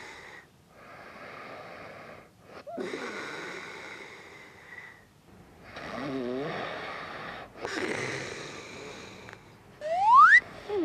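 A sleeping man breathing loudly and snoring while wearing an anti-snoring tongue sleeve: about four long noisy breaths, two of them with a fluttering snore. Near the end comes a short, loud, sharply rising whistle-like tone.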